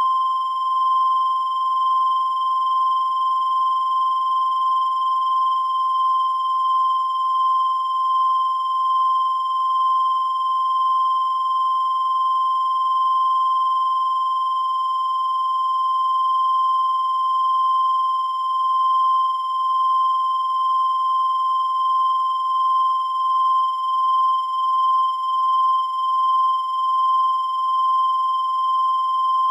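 A continuous high-pitched electronic tone, one unbroken steady pitch with overtones, wavering slightly in loudness from about halfway through.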